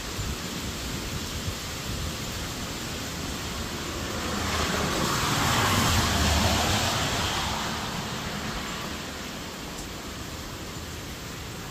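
Steady hiss of heavy rain and wind, with a car passing on the wet road: a rush of tyre spray that swells about four seconds in, peaks near the middle and fades away.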